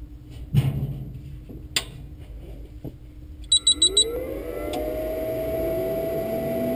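A Dell PowerVault 130T tape library starting up: four quick electronic beeps, then a motor whine that rises in pitch and settles into a steady hum that grows louder. Before the beeps there is a thump about half a second in and a knock a little later.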